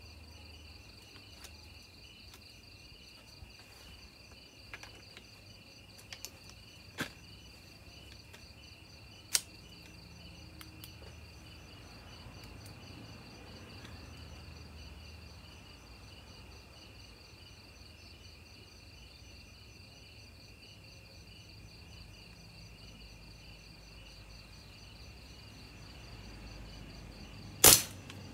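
One shot from a suppressed PCP air rifle near the end, the loudest sound, over a steady chirring of crickets. A few faint clicks come before it.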